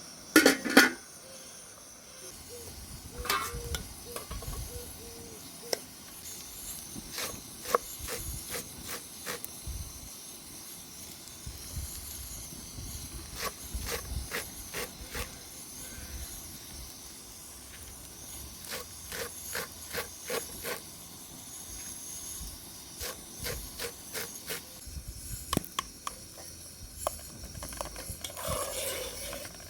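Campfire crackling: irregular sharp pops and clicks over a steady hiss, with one loud clatter about half a second in.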